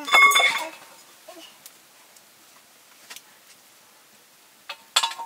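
Steel plate clattering against a hard surface, with a brief metallic ring. A few light knocks follow, and there is another short clatter near the end.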